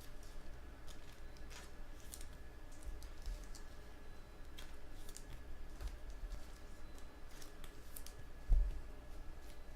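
Trading cards being handled and sorted: scattered light clicks and flicks of card stock, with a dull thump about eight and a half seconds in.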